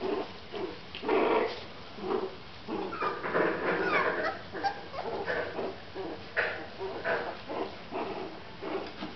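Several young puppies making short, irregular yips and growls while they play-wrestle with each other.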